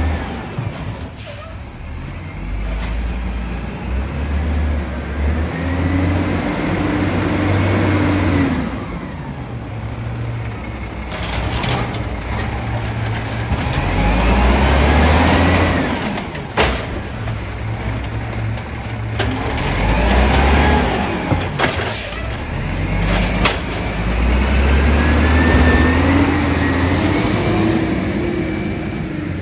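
Volvo WX64 garbage truck's diesel engine revving up and easing back down about four times, the way it does as the Amrep Octo automated side-loader arm cycles through cart pickups, with a few sharp knocks along the way.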